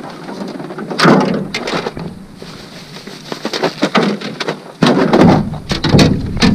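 A hooked bass splashing and thrashing at the surface as it is reeled to the boat, in several loud, irregular bursts of splashing.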